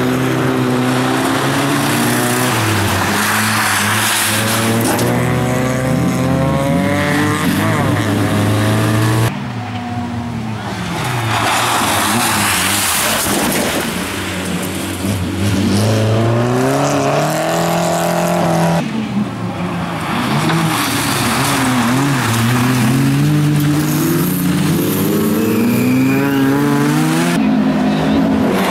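Bilcross race cars' engines revving hard, the pitch climbing and dropping again and again through gear changes and lifts as the cars slide round the corners. The sound breaks off abruptly three times where one car's run cuts to the next.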